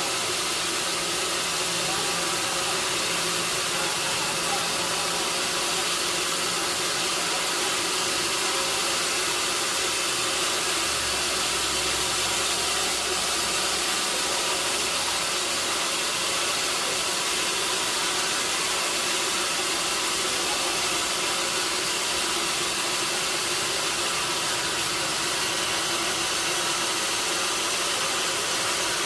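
Sawmill machinery running steadily: an even, unbroken mechanical noise with a few faint steady tones.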